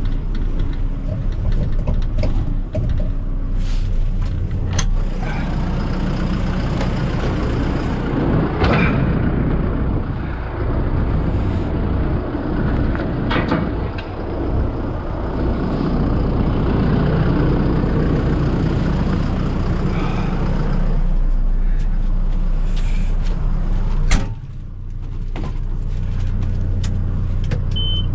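A heavy vehicle's engine running steadily, working harder through the middle stretch, with a few sharp metallic knocks. The level drops abruptly about 24 seconds in.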